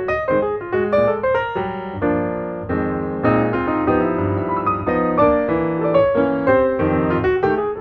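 Background music: piano playing a flowing run of notes and chords.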